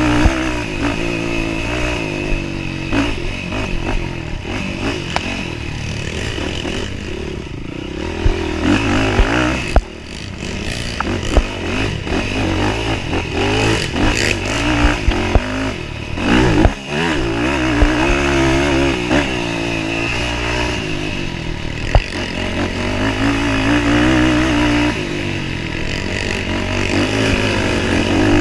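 Racing ATV engine at full race pace, its pitch climbing and falling with the throttle and cutting back sharply twice. Scattered knocks and clatter come from the machine over bumps.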